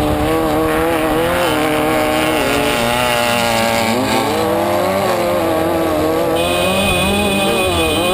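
Off-road race car engine heard from inside the car, running hard with its pitch rising and falling through several shifts and lifts. A thin steady high whine joins about six seconds in.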